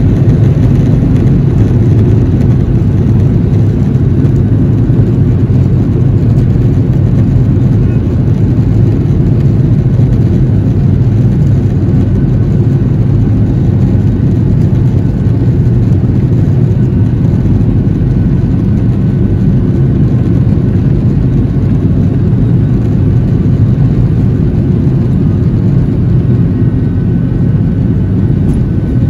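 Boeing 737-700 cabin noise during the takeoff roll: the CFM56-7B engines running at high thrust under the rumble of the wheels on the runway, a loud, steady low noise, heard from a window seat beside the wing.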